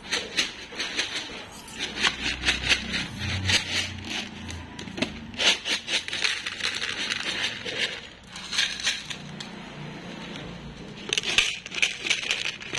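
A cat crunching dry kibble from a plastic plate, in bursts of crisp clicks, with kibble pattering onto the plate as more food is poured.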